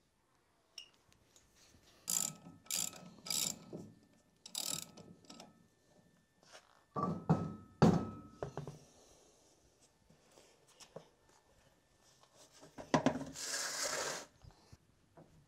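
Floor jack being pumped, clicking and clunking with each stroke as it lifts the car. Then heavy, ringing metal knocks as the rear wheel is worked off its hub, and a scrape near the end as the tyre is pulled away and set down.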